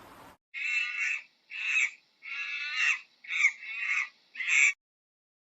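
A bird giving a run of about six harsh calls, each about half a second long, that stop abruptly.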